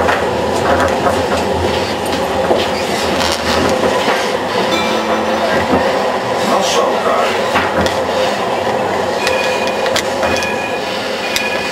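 Tram running along street rails, heard from inside the car: a steady rumble and rattle with clicks from the wheels and rails, and a faint high whine that comes and goes near the end.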